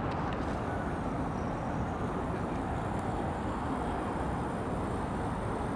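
Steady outdoor city ambience: an even, low hum of distant traffic with no distinct events.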